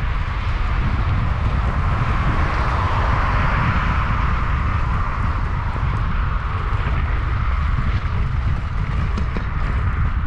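Wind rumbling on an action camera's microphone as it moves along a street, over a hiss that swells for a few seconds in the middle and then eases.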